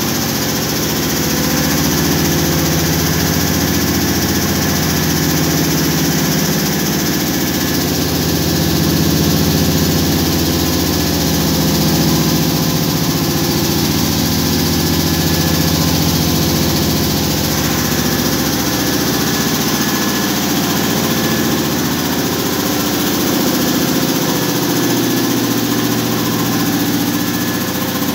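Belt-driven piston air compressor running steadily.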